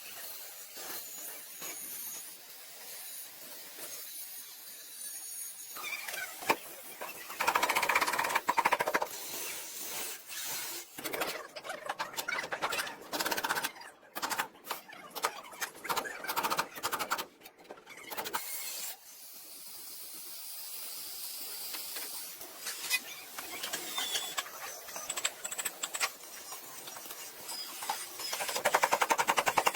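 Metal bodywork noise: intermittent knocks and clatter, with two loud stretches of rapid metallic strikes, one about eight seconds in and one near the end.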